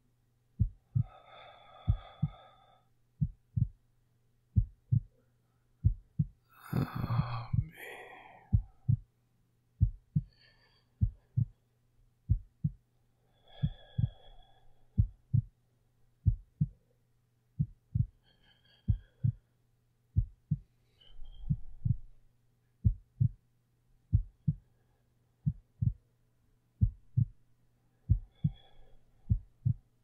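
Heartbeat, a slow steady lub-dub of soft low double thumps, under slow quiet breathing, with one louder breath about seven seconds in.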